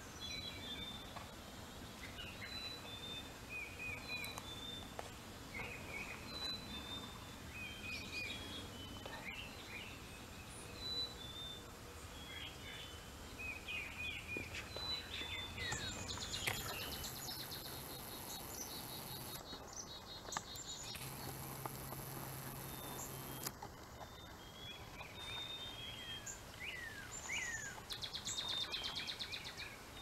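Small wild songbirds chirping and singing in short repeated phrases over faint outdoor ambience. A steady high hiss comes in about halfway and stops a few seconds later, and a quick trill sounds near the end.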